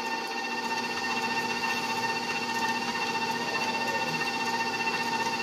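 Electric mixer running steadily with an even motor whine, beating pound cake batter.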